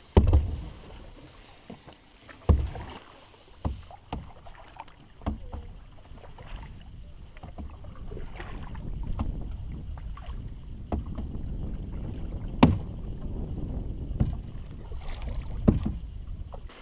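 Canoe paddling: a wooden paddle knocks sharply against the side of the canoe every one to two seconds with each stroke, over the swish of water and a low steady rumble that grows through the second half.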